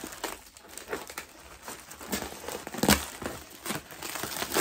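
Black plastic mailer bag crinkling and tearing as a kitchen knife slices it open, a run of irregular rustles and crackles that grows louder about three seconds in and again near the end.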